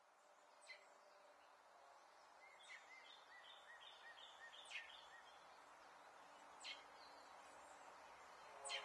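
Near silence: faint background ambience slowly rising in level, with a few faint bird chirps and soft clicks.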